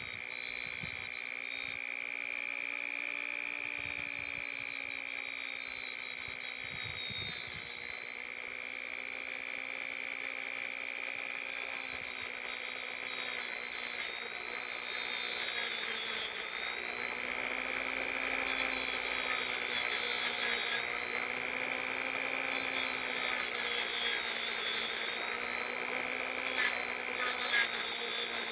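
Small high-speed electric rotary tool running continuously, its pitch wandering slightly up and down as it works the metal of the ratchet during clean-up, with a couple of light ticks near the end.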